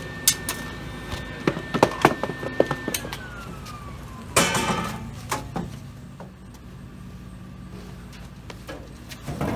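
Knocks and a short clatter of a sheet-metal car door being handled. A high steady tone in the background slides down in pitch about three seconds in, over a low steady hum.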